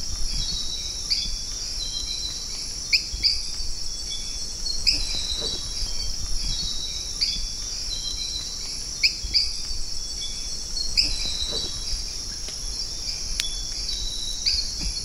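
Amazon rainforest at night: a steady, high insect chorus of crickets and katydids, with short chirping calls from frogs or night birds that recur every couple of seconds.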